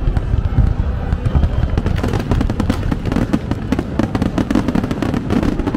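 Fireworks going off: a rapid, dense run of sharp crackling pops that thickens about two seconds in, over a constant low rumble.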